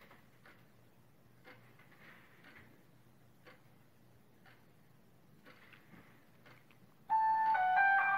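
Faint, regular ticking about once a second, like a clock. About seven seconds in, a loud melody of held electronic notes starts abruptly.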